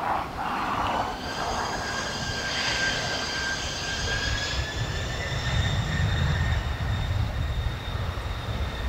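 Boeing 767-300F's twin GE CF6-80C2 turbofans spooling up on the runway: a whine of several high tones that rise slightly, then a deep exhaust rumble building from about halfway through as thrust comes up for takeoff.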